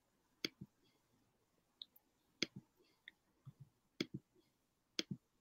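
Computer mouse clicking: four sharp clicks, each followed closely by a second, quieter one, spaced a second or two apart, with a few fainter ticks in between.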